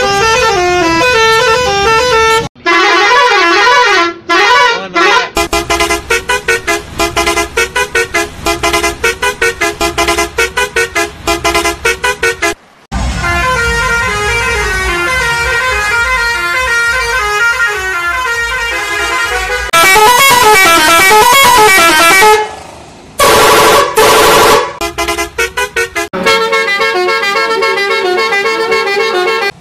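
Kerala tourist-bus musical air horns playing a string of multi-note horn tunes, one clip after another. Some tunes come as rapid runs of short blasts, others as held, wavering notes. There are brief breaks between clips.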